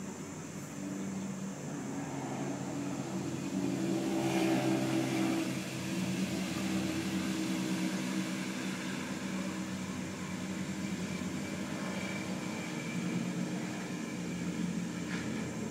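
An engine running steadily, swelling louder about four seconds in and then easing back, over a steady high hiss.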